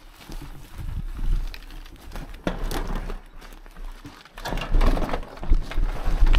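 Mountain bike rolling over rough sandy gravel: uneven tyre crunch and the bike rattling, with wind rumbling on the microphone. The noise surges twice, about two and a half seconds in and again around five seconds.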